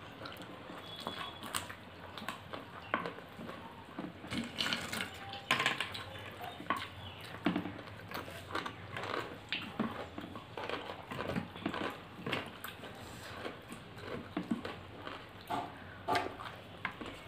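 Eating by hand, close to the microphone: irregular wet chewing and mouth smacks, with fingers mixing rice and curry on a steel plate.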